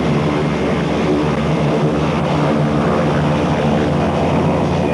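Pratt & Whitney PT6A turboprop engines of Embraer T-27 Tucano trainers running on the ground: a steady propeller drone with a low hum. It cuts off suddenly at the very end.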